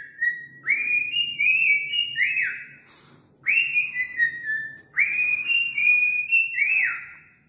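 Cockatiel whistling its song in short repeated phrases. Each phrase starts with a rising note, steps down through a few held notes and ends with a quick falling slide. About three phrases are heard, with brief pauses between them.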